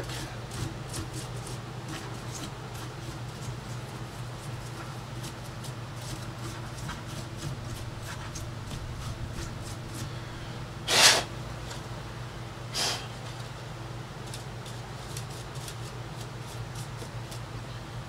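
The plastic laptop bottom cover being handled and turned over by hand, giving faint scattered clicks over a steady low hum, with one brief louder rustle about eleven seconds in and a smaller one near thirteen seconds.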